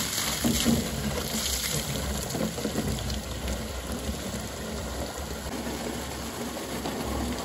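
A thick stream of water gushing into a blue plastic drum and splashing as the drum fills, a steady, unbroken pour.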